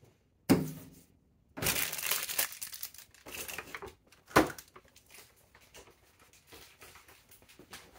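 Cardboard advent calendar box being picked up and handled, rustling and crinkling. There is a short thump about half a second in and a sharp knock a little after four seconds.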